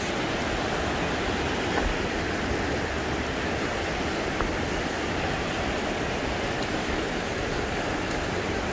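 River water rushing over whitewater rapids: a steady, even rush.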